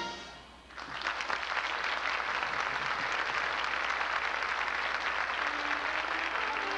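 Audience applause starts about a second in and holds steady. Near the end, orchestral music begins softly underneath it.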